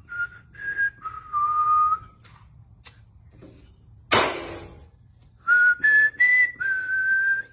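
A person whistling a short tune in clear held notes that step up and down, in two phrases. A brief loud rush of noise comes between them.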